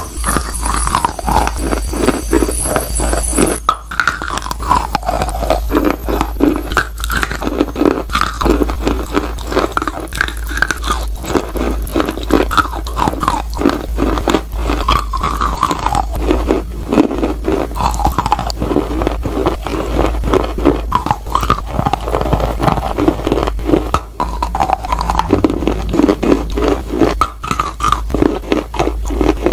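Dry white clay being bitten and chewed close to a clip-on microphone: many sharp, brittle crunches as pieces snap off, with gritty chewing between bites.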